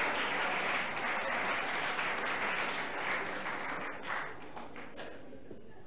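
Audience applauding, the clapping thinning out after about three seconds and stopping around five seconds in, with a few last separate claps.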